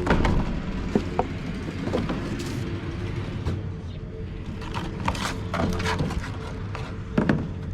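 Background music over intermittent clicks and knocks of hand tools working on a furnace blower assembly.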